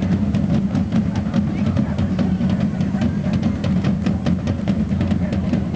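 Procession drums beating a quick, steady rhythm: a constant heavy low drumming with sharp strikes about four or five times a second.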